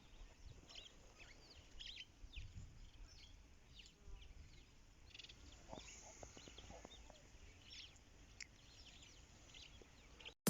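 Faint birdsong: many short, quick chirps from several birds, over a faint low rumble.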